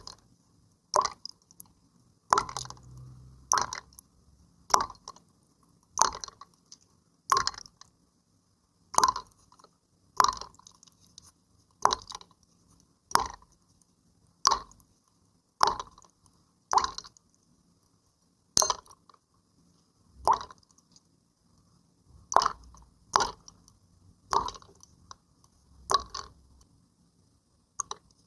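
Water play: short wet water sounds repeated at an even pace, about one every second and a quarter, each ending in a brief tail.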